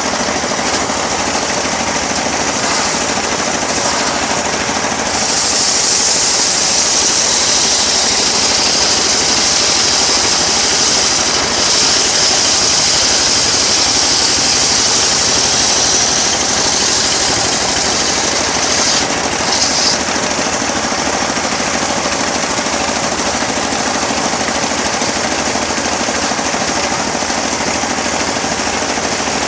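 Homemade engine-driven sawmill running hard, its saw blade cutting through teak with a loud hiss from about five seconds in until about twenty seconds, briefly easing near the middle; the engine runs on steadily after the cut.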